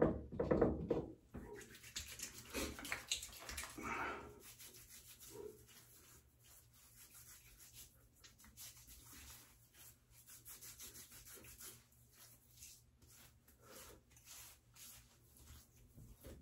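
Hands rubbing lotion into a beard, face and neck: faint, irregular rubbing of palms over whiskers and skin. A few louder knocks from handling things come in the first second.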